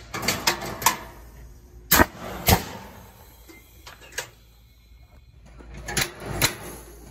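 Apple cannons firing and being worked: a scattered run of sharp pops and knocks. The loudest pair comes about two and two and a half seconds in, with another cluster near the end.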